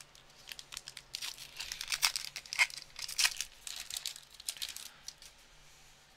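A baseball card pack wrapper being torn open and crinkled by hand: irregular, crackly rustling that dies away about five seconds in.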